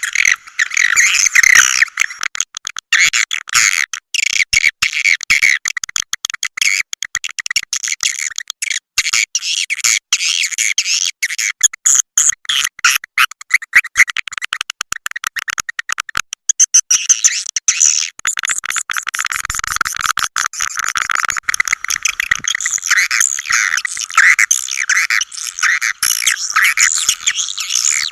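Swiftlet lure call recording: dense, continuous chattering twitters and trills of swiftlets, the kind of call track played to draw swiftlets into a nesting house.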